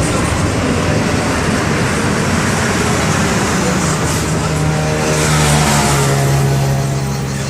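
Turbo-diesel inline-six engine (MWM 6.12 TCE, 225 hp) of a Volksbus 17-230 EOD bus running loud under way; from about halfway through its note drops and settles at a lower steady pitch as the engine slows.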